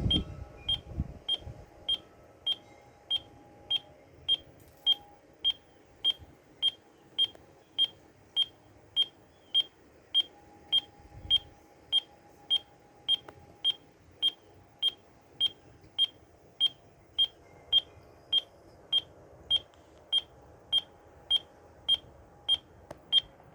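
Steady train of short high-pitched beeps, about two a second, from a computer's antenna-alignment tool. The beeping tracks the radio link's signal while the wireless-internet antenna is being aimed at a distant access point.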